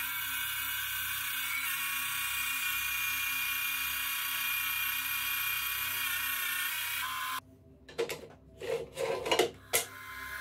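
FABTEC BS 250 bandsaw running with a steady whine and hum as its blade cuts through a thick wooden board. About seven seconds in, the sound cuts off abruptly, followed by a few short knocks and clatters of the saw's metal fence being handled.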